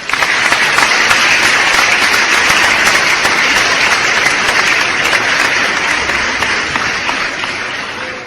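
Crowd applause: many hands clapping at once, a dense steady patter that slowly dies down toward the end.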